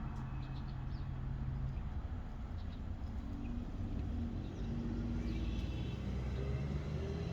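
Cars passing by on a nearby street: a steady engine and tyre rumble that grows a little louder about five seconds in.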